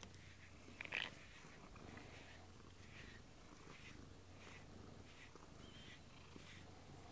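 House cat purring softly while its head is brushed with a rubber grooming brush, with soft strokes repeating, and a brief louder noise about a second in.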